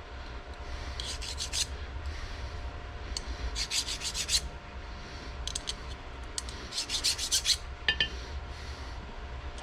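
A hand file scraped in short bouts of quick strokes across a case-hardened steel T-nut, skating over the surface without biting, the sign that the case hardening took. A brief squeak near the end.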